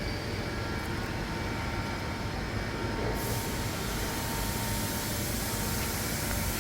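Steady workshop machinery drone with faint steady tones, joined abruptly about three seconds in by a loud high hiss.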